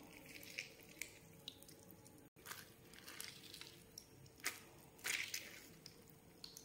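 A galgal (hill lemon) squeezed by hand over a small steel bowl: faint, scattered squelches of rind and pulp and juice dripping into the bowl, a little louder about five seconds in.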